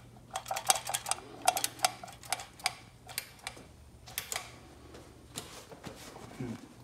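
Metal clicking of a Stromberg carburetor's throttle linkage worked by hand, snapping back against its stop, to pump the accelerator pump. The clicks come fast and irregular for the first few seconds, then thin out to a few single clicks.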